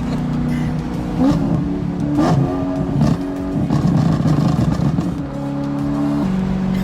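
BMW M3's V8 through a Capristo and Akrapovič exhaust with a Gintani tune, driving and changing pitch with the revs, with a rough stretch of pops and crackles from the exhaust about halfway through before settling to a steady drone.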